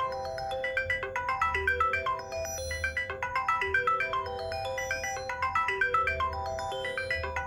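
Motorola Moto C ringtone playing: a quick rippling run of short, bright notes over held chord tones, looping about every two seconds.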